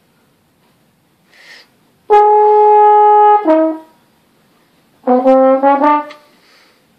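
French horn played solo: after a short breath, one held note of about a second and a half drops to a brief lower note. After a pause comes a quick run of short, separate notes.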